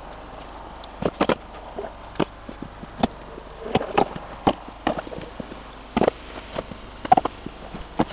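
Wooden log clothes racks knocking as they are set down on a table and stacked against each other: about a dozen irregular clunks.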